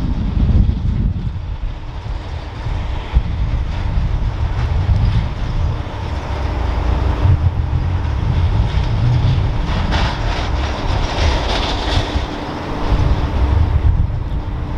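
Low, uneven rumble of a diesel aircraft tow tractor hauling an airliner, mixed with wind buffeting the microphone and a faint steady hum. A brighter hiss swells briefly about two-thirds of the way through.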